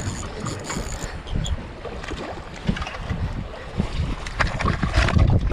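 Wind buffeting the microphone over choppy water, with water slapping and lapping against the boat. A few short knocks or splashes come about four to five seconds in.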